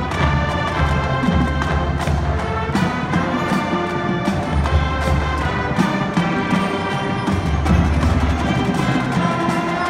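School marching band playing a display show: held band chords with drum and percussion strikes throughout.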